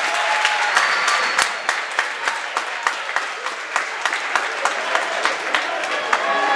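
Spectators clapping and applauding a goal, many irregular sharp claps, with a few shouting voices near the start.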